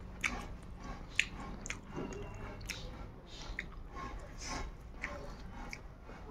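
A person chewing a mouthful of food close to the microphone, with irregular short mouth clicks and smacks.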